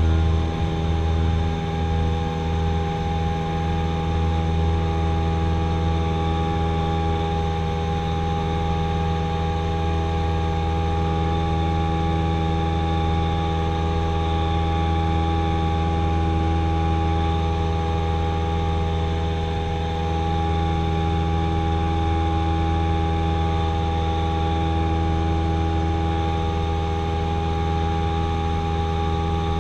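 Cessna 172SP's four-cylinder Lycoming IO-360 engine and propeller at full takeoff power, heard from inside the cabin as a steady drone through the takeoff roll and climb. A little uneven low rumble in the first few seconds, while the wheels are still on the runway.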